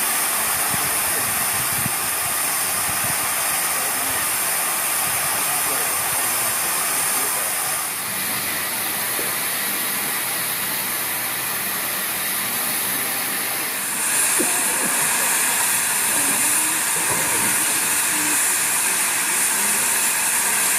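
Steam hissing steadily from standing industrial steam tank locomotives, a loud, high hiss. It changes tone about eight seconds in and grows brighter and a little louder from about fourteen seconds.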